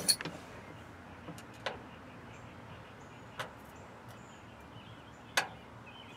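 A few sharp clicks and taps from a screwdriver working at a truck's ceiling dome light fixture, spaced a second or two apart, over a low steady hiss.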